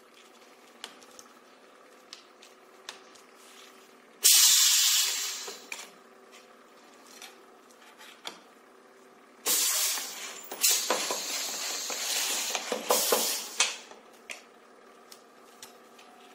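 Compressed air hissing from a flap wheel wrapping machine's pneumatic cylinders and valves. One sharp hiss comes about four seconds in and fades over a second or so, and a longer, uneven spell of hissing runs from about nine and a half to nearly fourteen seconds. Small clicks and taps sound between the hisses over a low machine hum.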